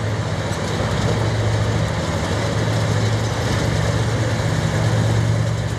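Diesel engines of main battle tanks running as the tanks move out of their hangars: a steady, low engine drone that tapers off near the end.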